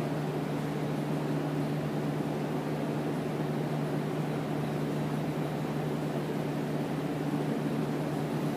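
Steady low mechanical hum, unchanging, with a constant low drone under a haze of noise.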